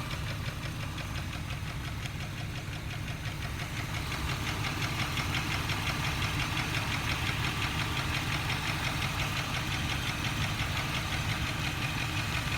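2002 Jeep Grand Cherokee Laredo engine running with a fast, steady ticking, a little louder from about four seconds in. The owner can't tell whether it is an exhaust leak, a lifter tick or a rod knock.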